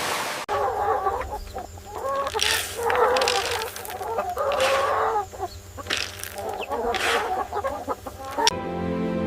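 Chickens clucking in a run of repeated calls, with soft music coming in near the end.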